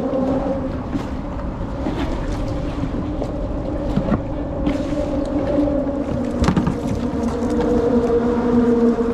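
A boat's engine running steadily, a constant hum, with wind noise on the microphone and a few knocks and clatters of gear handled in a kayak; the loudest knock comes about six and a half seconds in.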